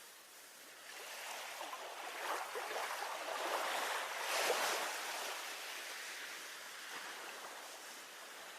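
Sea waves washing against a harbour breakwater: one swell of surf that builds about a second in, peaks near the middle and slowly fades.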